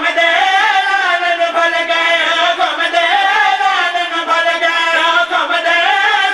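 Several men's voices chanting a devotional verse together in a slow, drawn-out melodic line, held and wavering without a break.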